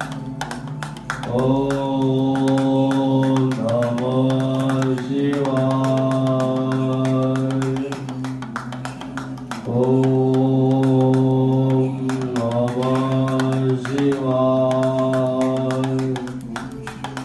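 A voice singing a devotional chant in long held notes, in phrases that repeat every few seconds.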